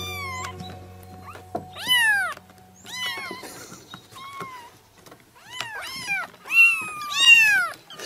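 A kitten meowing over and over: short, high-pitched meows that each rise and fall in pitch, about nine of them, the loudest near the end. Background music fades out about a second in.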